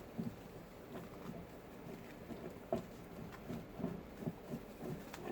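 Faint, irregular soft taps and rubbing as a cat tree post is handled and twisted onto its screw.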